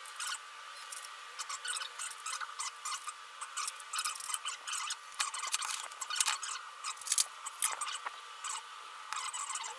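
Hand work on small metal engine parts: irregular clicks, taps and short scrapes of tools and parts being handled, thin-sounding with almost no low end, cutting off suddenly at the end.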